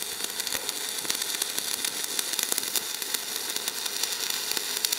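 Stick (manual metal arc) welding with a 2.5 mm Phoenix Grün T RR12 rutile electrode at about 100 amps, laying a fillet weld: the arc gives a steady crackling sizzle, dense with fine pops. The electrode is dragged resting on the joint.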